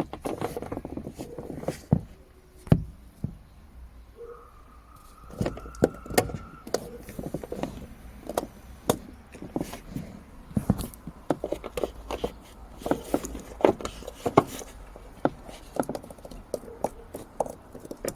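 Irregular plastic clicks and knocks as a car door's wiring connector is wiggled and pushed back into its socket, working it toward locking in place.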